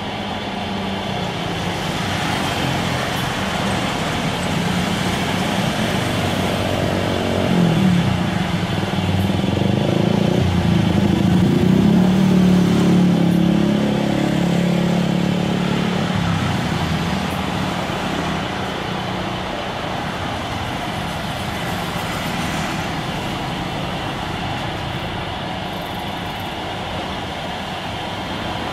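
Steady outdoor traffic noise, with a motor vehicle passing louder through the middle and fading away afterwards.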